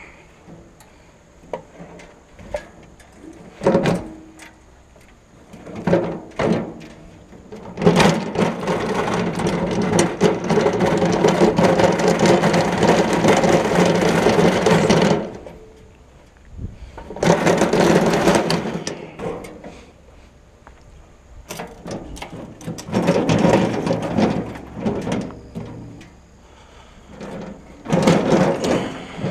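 Stainless gas grill being wheeled over pavement: its casters rolling and its metal body rattling, in one long stretch of about seven seconds and several shorter ones, with a few knocks before it.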